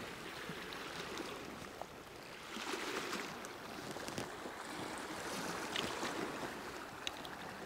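Sea ambience: small waves washing against the rocks with a little wind, a steady soft wash that swells briefly about three seconds in.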